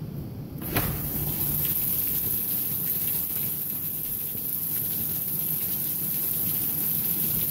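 Steady rain falling on a concrete balcony. Under a second in, a knock is heard and the rain grows suddenly louder and brighter, as a sliding glass door is opened onto it.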